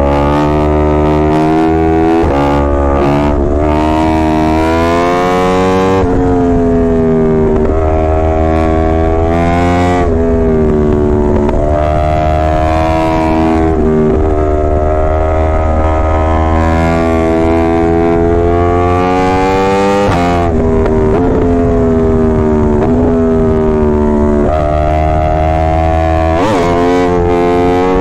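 Yamaha R1's inline-four engine and exhaust running hard, its pitch sweeping slowly up and down in long stretches of several seconds, with short breaks between them as the revs change.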